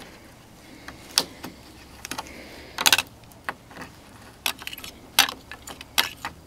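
Wire coat hanger being fished down between a car door's window glass and the rubber weather stripping: scattered sharp metallic clicks and scrapes, with a quick cluster of them about three seconds in.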